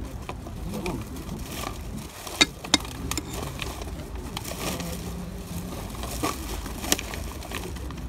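Small hand hoe scraping and digging in loose soil, with three sharp clicks: two close together about two and a half seconds in, one near seven seconds.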